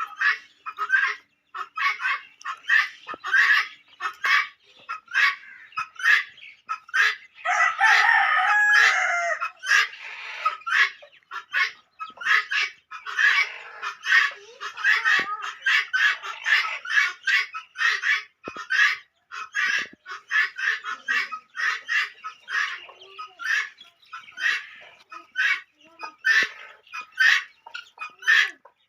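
Aseel chickens clucking in a quick, continual run of short calls. A rooster crows once, the loudest sound, starting at about seven and a half seconds in and lasting about two and a half seconds.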